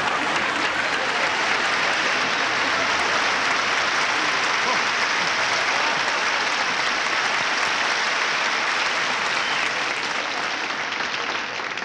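Audience applauding steadily, a dense clapping that eases a little near the end.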